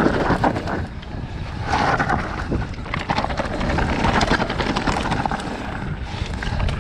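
Commencal Meta Power 29 electric mountain bike descending rocky dirt singletrack: tyres rolling over dirt and stones and the bike rattling in many short clicks and knocks, over a steady low rumble of wind on the microphone.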